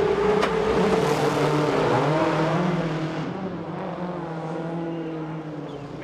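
Rally car engine running hard at high revs, with one sharp crack about half a second in. After about three seconds the sound grows quieter and duller as the engine note falls.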